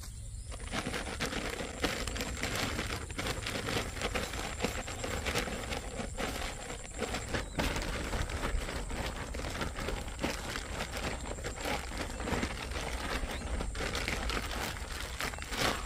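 A plastic bag crinkling and rustling continuously with many small crackles as hands knead fishing bait mix inside it. The sound starts about half a second in.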